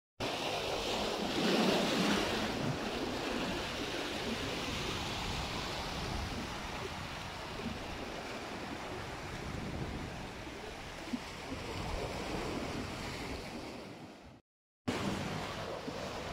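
Ocean waves breaking and washing over shoreline rocks: a steady rushing wash, with a louder surge about two seconds in. The sound drops out for a moment near the end.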